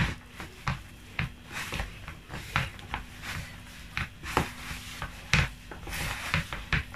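Hands mixing wet pizza dough in a bowl: irregular soft squelches and knocks, one or two a second.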